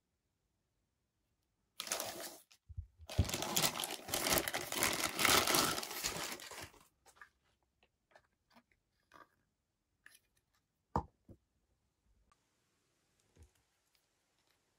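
Clear plastic packaging crinkling and tearing for about five seconds, then a few light clicks and taps of hard plastic figure parts being handled, with one sharper click.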